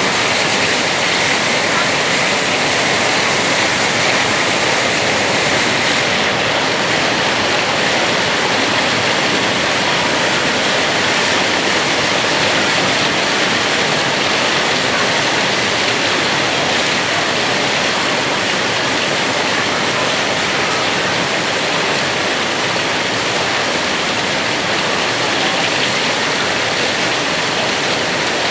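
Heavy rain pouring down in a rainstorm, a loud, steady hiss.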